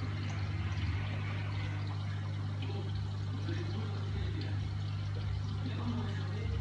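Reef aquarium pumps running: a steady low electrical hum with a soft hiss of circulating water.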